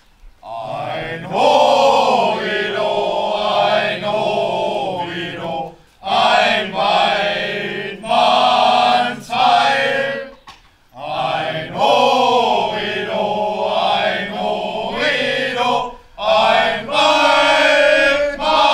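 Men's voices singing together in chorus: long phrases of held notes, broken by short breaths between phrases.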